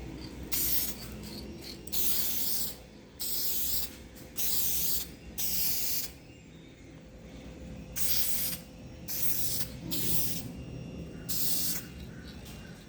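Spray paint hissing out in about nine short bursts, each under a second, as paint is applied to a 3D-printed helmet.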